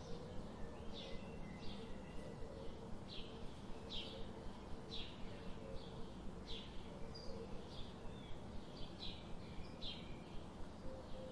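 Birds chirping, short high calls repeating every half second or so, over a steady background hiss.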